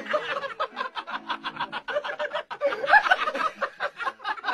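A person laughing in a long run of quick bursts, about five a second, with no break.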